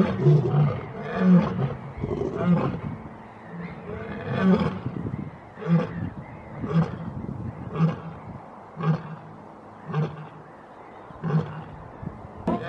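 Lioness roaring: a bout of deep calls that begins with longer, louder roars and trails off into shorter grunts about one a second, growing fainter.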